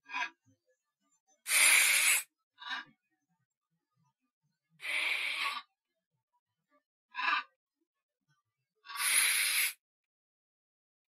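Breathy hissing sounds in a repeating pattern: a short puff, then about a second later a longer hiss lasting under a second. The pair recurs about every three and a half seconds, with silence between.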